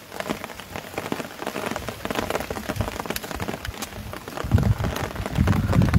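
Rain falling, with a dense, irregular patter of drops striking close by over a steady hiss. About four and a half seconds in, a louder low rumble joins.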